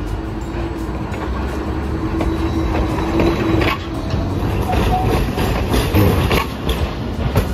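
Hiroden streetcars running through a street-track junction close by, a 3900-series articulated tram and a Green Mover. A steady low hum fades out about halfway through, then the wheels clack over the rail crossings, getting louder.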